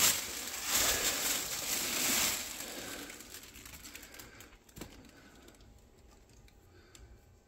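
Packing material rustling and crinkling as it is handled inside an opened shipping box, loudest over the first two seconds or so and then dying away to faint scattered ticks, with one sharper click about five seconds in.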